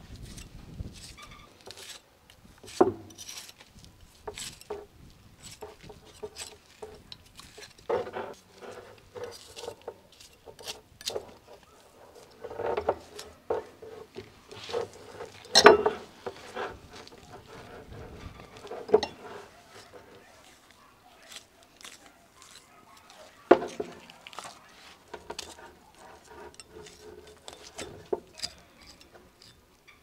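Knife slicing and scraping the skin off a raw ostrich leg: irregular scrapes and clicks, with a few sharper knocks, the loudest about halfway through.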